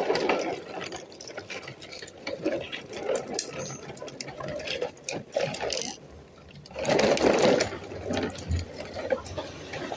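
A small mechanism whirring and rattling in uneven spurts. It drops out briefly about six seconds in, then comes back at its loudest.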